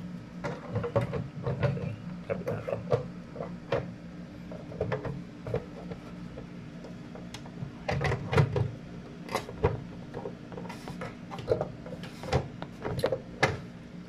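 Scattered clicks and light knocks of objects being handled close by, irregularly spaced and thickest about eight seconds in, over a steady low hum.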